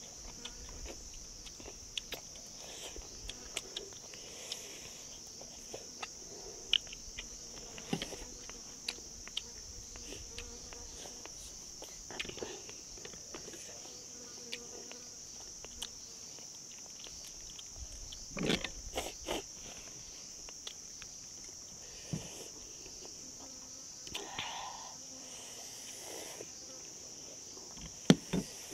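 Steady high-pitched drone of an outdoor insect chorus, with scattered small clicks and knocks over it, a cluster about 18 seconds in and a sharp one near the end.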